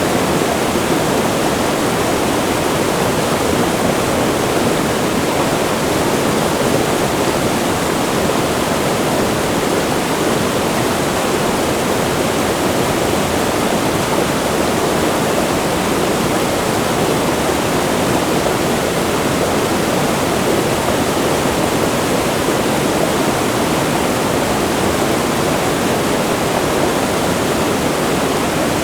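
Wide river rushing close to a waterfall: a steady, unbroken roar of water.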